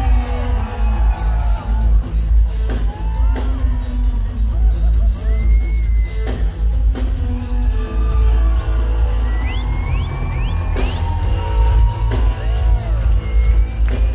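A live reggae band playing loud through a concert PA: a heavy, steady bass line and drum kit under guitar and keys, with a few short rising whoops over the music around the middle.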